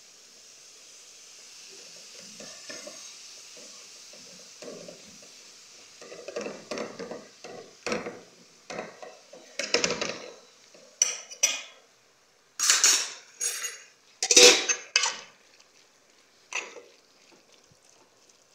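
Metal spoon stirring and scraping vegetables in aluminium cooking pots, with irregular clattering strokes that grow louder and busier about a third of the way in. A faint steady hiss comes first.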